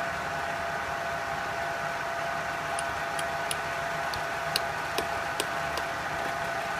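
Steady hum of workshop machinery running. In the middle come about eight light clicks and knocks as small polyurethane mallet heads are picked up and set down on a metal rail.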